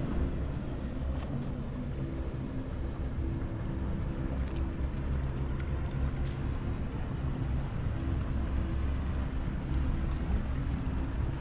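A motorboat engine running steadily at a low, even pitch.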